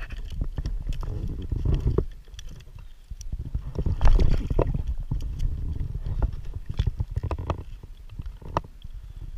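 Handling noise on a body-worn GoPro as an angler grabs and lifts a landed largemouth bass: arm and clothing rubbing and bumping the camera housing, giving a low rumble with scattered clicks and knocks, loudest near the start and again about four seconds in.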